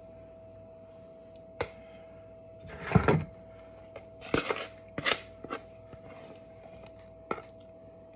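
A fork scraping and knocking against a mixing bowl as batter is spooned into a metal muffin tin: a few short clicks and scrapes, the loudest cluster about three seconds in.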